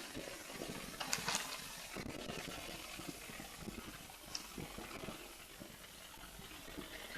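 Steady background hiss with a few faint clicks, about a second in and again near the middle.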